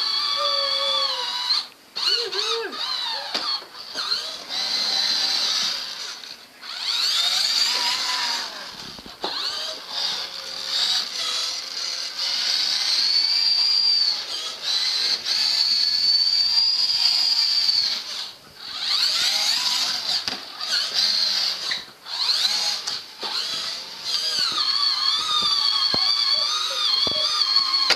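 Toy ride-on ATV whining as it is run and rolled across the floor. The high whine wavers in pitch and drops out briefly several times.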